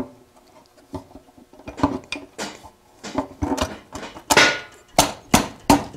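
Metal auxiliary gas tank knocking and scraping against the motorcycle frame as it is worked into place on its rubber support mounts. Irregular knocks, clicks and rattles that grow busier, with several sharp knocks in the second half.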